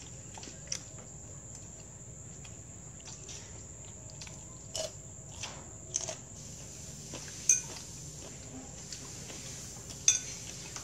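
Chopsticks and spoons tapping and clinking now and then against china plates and a bowl, a few sharp clicks in all. The loudest come near the end. Behind them a steady high-pitched insect drone runs throughout.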